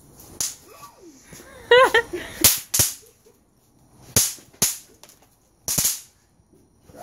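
Bang snaps (snap-pop novelty fireworks) cracking as they are thrown down, a sharp pop every second or so, some in quick pairs. A brief high voice cries out about two seconds in.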